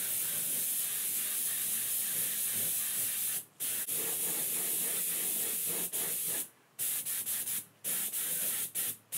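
Air-powered spray gun hissing as it sprays primer onto spot repairs on a truck body. The hiss stops briefly where the trigger is let off, once about three and a half seconds in and several times in the last three seconds.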